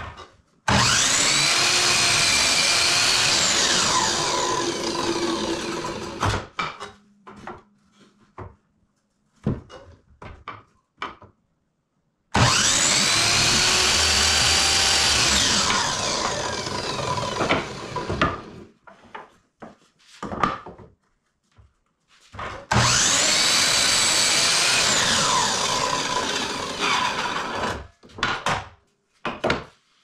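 Electric miter saw making three cuts through wooden boards: each time the motor starts, cuts, then winds down with a falling whine. Short knocks and clicks between the cuts as the wood pieces are handled and set down.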